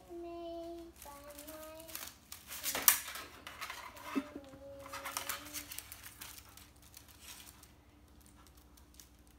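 A child singing a few held notes, with rustling and clicking in between and one sharp crackle about three seconds in.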